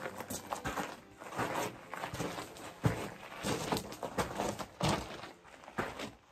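Footsteps crunching on loose rocks and gravel at a walking pace.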